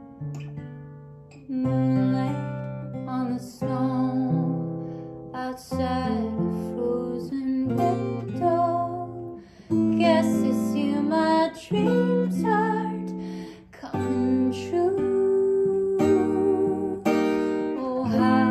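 A steel-string acoustic guitar strummed in slow chords, with a woman singing a slow ballad over it.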